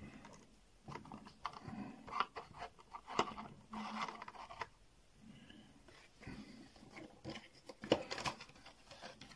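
Light clicks and scrapes of a clear plastic protector case being handled and turned in the hand.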